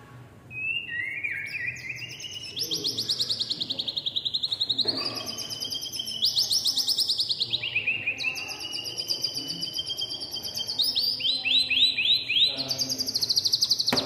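White-rumped shama singing a long, varied song of rapid trills, fast repeated notes and sliding whistled phrases.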